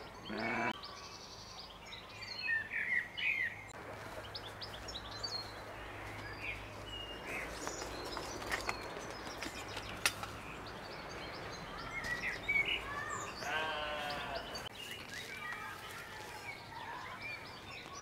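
Quiet farmyard ambience: small birds chirping on and off, with one louder, longer call from a farm animal about three-quarters of the way through.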